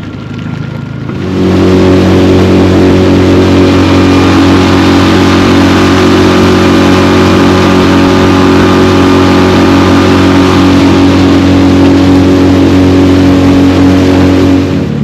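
Outboard motor of a small fishing boat throttling up about a second in, then running steadily at speed with an even, pitched drone, easing off near the end.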